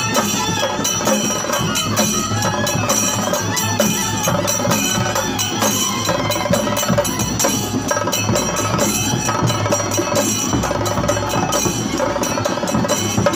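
Kerala chenda drums beaten with sticks by an ensemble in a continuous, dense rhythm of fast strokes.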